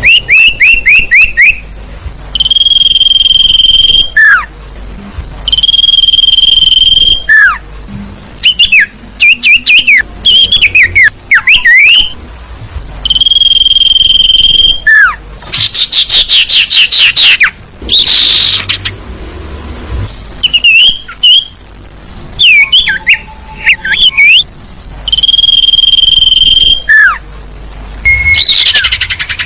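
Bird-lure recording of sirtu calls, played loud: long steady high whistles of about a second and a half, repeated several times, alternating with fast runs of short chirping notes and quick rising and falling chirps. The calls are a lure meant to draw birds in, presented as a female sirtu calling a male.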